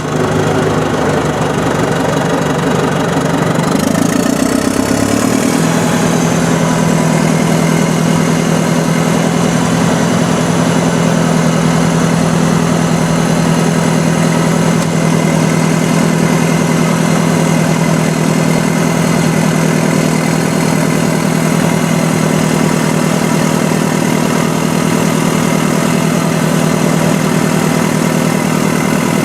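Heavy earthmoving diesel engine running steadily. Its speed shifts around four to six seconds in, then holds an even note.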